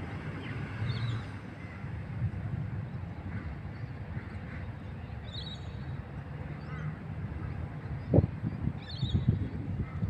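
Outdoor ambience: a steady low rumble, with birds chirping several times in short high calls and a sharp thump about eight seconds in.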